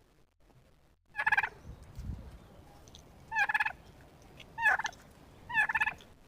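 Male turkey gobbling four times, each gobble a short, rapid warbling burst.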